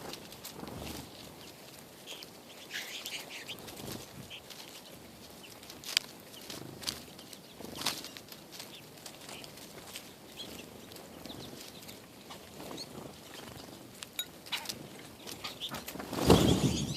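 Birds close by: wings fluttering, with scattered taps and a few short chirps. A loud flurry of wingbeats comes near the end.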